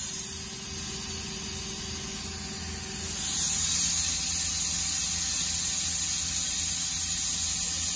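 Mazak QTN-200MY CNC lathe's main spindle running at speed during a spindle run test, a steady whine with a high hiss. It grows louder about three seconds in and then holds steady.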